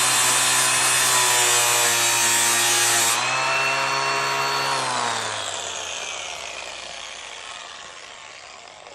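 Angle grinder grinding down the slot in a steel Lambretta fork steering tube to lower it by about 3 mm. The disc comes off the metal about three seconds in and spins freely, then the grinder is switched off and winds down with a falling whine.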